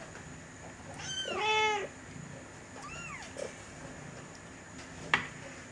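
Bengal cats meowing: a long, loud meow about a second in and a short rising-and-falling mew around three seconds. A single sharp click follows near the end.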